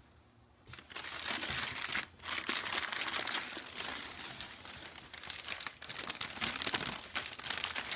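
Gift wrapping crinkling and crumpling as a present is unwrapped by hand. It starts about a second in and keeps going, with a brief pause near two seconds.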